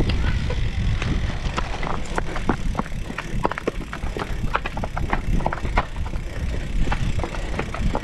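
Cyclocross bike dismounted and carried up stone steps: an irregular run of sharp clicks and knocks from the rattling bike and footsteps, over a constant low rumble of handling noise on the handlebar-mounted camera.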